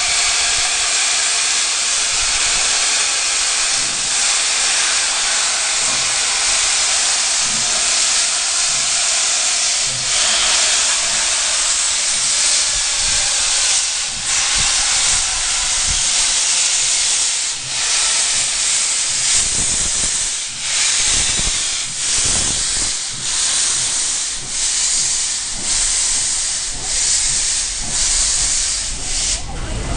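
NSW 36 class steam locomotive 3642 blowing steam from its cylinder drain cocks in a loud, steady hiss. From about halfway through, the hiss beats in pulses about once a second, quickening slightly, as the locomotive gets under way.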